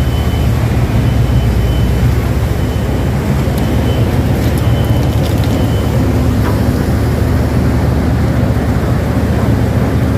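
Marine diesel engine running steadily with a loud, deep, even rumble.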